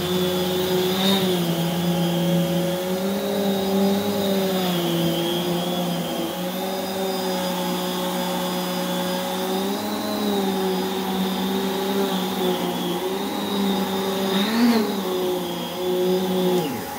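Prolux X8 Elite backpack vacuum running with its EBK360 power nozzle on carpet, a steady motor whine whose pitch wavers slightly with the strokes. Near the end the pitch briefly rises once, then the whine drops away just before the close.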